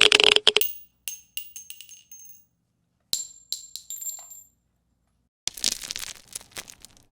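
A string of separate sound effects. A rapid burst of impacts ends just after the start. Two series of small metallic clinks follow, each strike ringing briefly, like coins dropping and bouncing on a hard surface. Near the end comes a short stretch of dense crackling.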